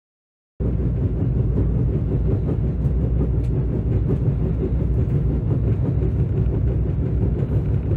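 Steady low rumble inside a Korail passenger train carriage, cutting in suddenly about half a second in.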